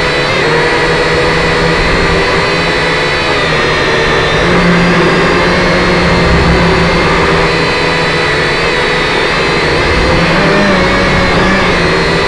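Motors and propellers of a small radio-controlled aircraft heard from the camera it carries: a loud, steady whine made of several pitches that waver slightly as it flies.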